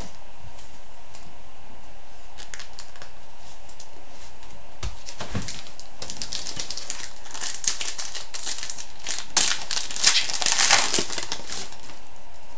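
Crinkling and rustling of hockey trading cards and their packaging being handled, in irregular bursts that start about halfway through and are loudest about three-quarters of the way in, over a steady faint hiss.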